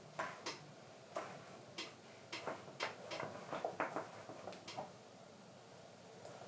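A run of light, irregular taps and clicks, about a dozen over the first five seconds, from handling and pressing glued leather pieces on the bench.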